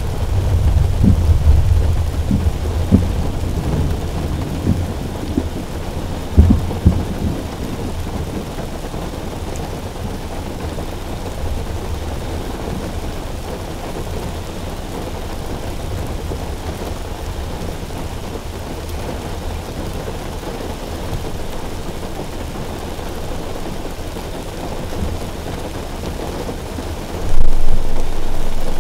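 Thunder rumbling through a thunderstorm over steady rain drumming on a car roof. The rumbling is loudest in the first few seconds, with peaks about three and six and a half seconds in. A sudden loud boom comes near the end.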